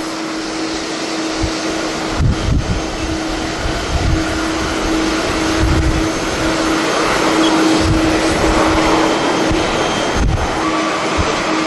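Airliner jet engines running: a broad, steady rush of jet noise with a low steady hum, while gusts of strong wind buffet the microphone in repeated low rumbles.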